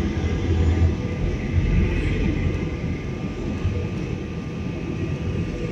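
Steady cabin noise of an Airbus airliner on its approach to land: constant engine and airflow noise heard from a window seat beside the wing, with a faint steady whine under it.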